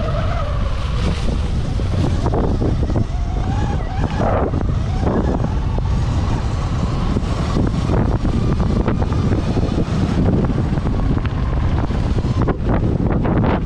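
Wind buffeting the helmet-mounted action camera's microphone while riding a Sur-Ron electric dirt bike, with the bike's electric motor whine rising and falling in pitch over the first few seconds.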